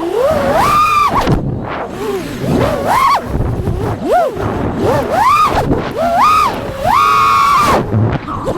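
FPV quadcopter motors and propellers whining, the pitch rising and falling over and over as the throttle is punched and chopped, with a held high-throttle stretch near the end.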